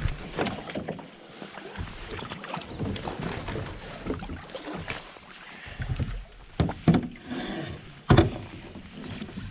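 Canoe being handled and launched in shallow water off a pebble shore: an irregular run of knocks, crunches and splashes from footsteps on wet stones and the hull against the rocks, with a few louder knocks in the second half.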